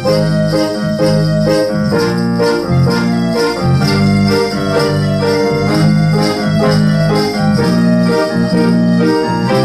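Instrumental music played on an organ-like keyboard: sustained chords with the notes changing about every half second.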